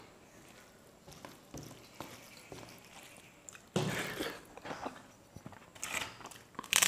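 Eating with the hands: fingers working rice on a plate, then chewing, with scattered soft clicks. A louder stretch comes about four seconds in, and a short crisp crackle near the end.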